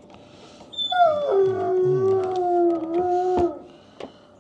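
A dog howling once: a long cry that drops in pitch and then holds steady for about two seconds. It is cut off by a sharp click.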